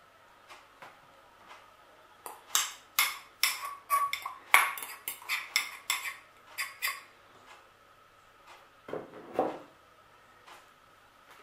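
A fork and bowl clinking and scraping against a metal springform ring: a quick run of sharp clinks over about five seconds, then a duller rustling knock near the end.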